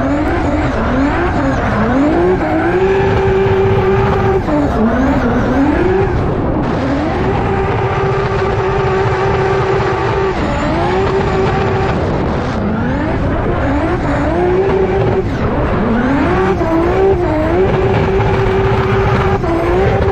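Drift car engine at high revs during a sideways run. Its pitch climbs and holds steady at the top for a few seconds at a time, then drops and climbs again several times, with tyres squealing as they spin and smoke.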